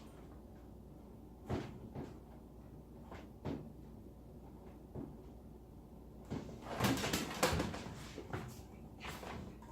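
Scattered knocks, clicks and rustles of hands handling a plastic hose and water pump parts, with a small cluster of clatters past the middle.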